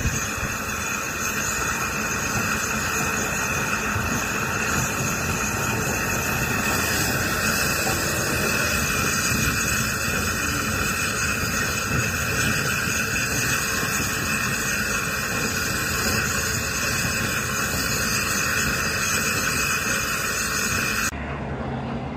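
Steam locomotive passing close by with its coaches under a loud, steady hiss of steam. The sound cuts off suddenly near the end.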